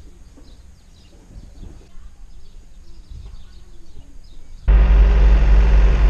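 Faint birdsong over quiet outdoor ambience, then about four and a half seconds in a New Holland tractor's engine cuts in suddenly and loud, running steadily as heard from inside the cab.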